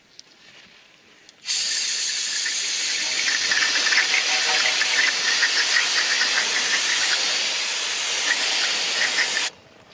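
Aerosol brake cleaner spraying in one long continuous hiss onto a rear axle hub, degreasing it. It starts about a second and a half in and cuts off suddenly shortly before the end.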